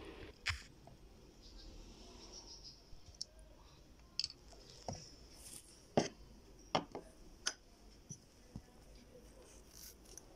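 Small plastic jars and containers being handled and set down on a cloth-covered table: a string of about ten light clicks and knocks, irregularly spaced, the loudest about six seconds in.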